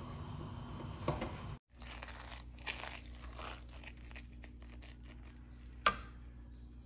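Plastic spoon stirring and scraping sticky cooked glutinous rice in a metal pot: a run of crackling, tearing scrapes, with one sharp knock of the spoon against the pot near the end.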